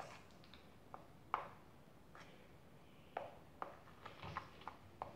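Faint, irregular clicks and taps of a stirring utensil against a small plastic bowl as slime ingredients are mixed.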